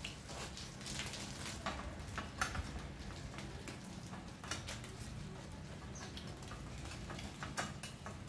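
A cloth rag being rubbed along a bare aluminium bicycle frame, giving scattered light scuffs and rubbing strokes over a low steady hum.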